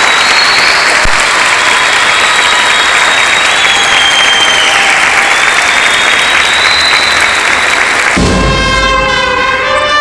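Audience applauding, with high whistling over the clapping. About eight seconds in the applause breaks off and a large youth orchestra of strings and brass starts playing.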